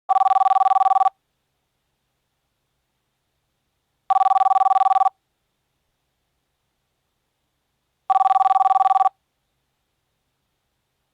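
Telephone ringing with a trilling electronic ring, two high tones warbling fast: three rings of about a second each, one every four seconds.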